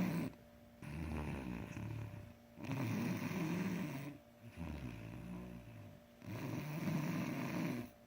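A boy snoring in his sleep: four snores of about a second and a half each with short pauses between, alternating softer and louder.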